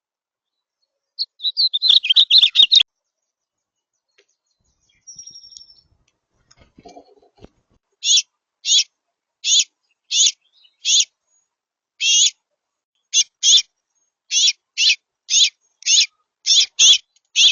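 Songbird calls: a quick twittering burst, then after a pause a long run of short, sharp, identical high notes repeated about one and a half times a second.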